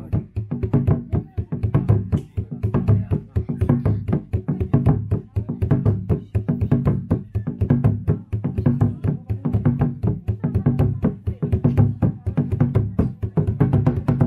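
Drums played by hand in a fast, even rhythm, several strokes a second, with the deep strokes strongest.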